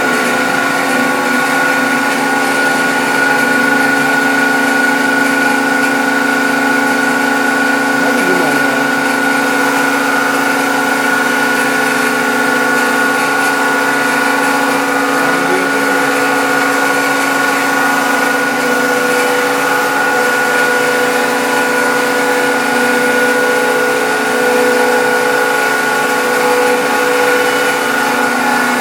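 Woodworking machinery running steadily: a constant whine made of several steady tones over a noisy hum.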